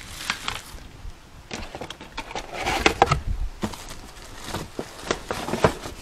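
Packaging rustling and plastic vacuum parts being handled, with scattered short clicks and knocks and a louder spell of rustling about halfway through.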